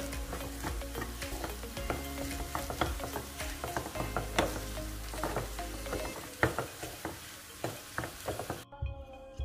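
Wooden spoon stirring and scraping a potato filling in a nonstick frying pan, with irregular knocks of the spoon against the pan over a steady sizzle of the hot pan. The sizzle cuts off suddenly near the end.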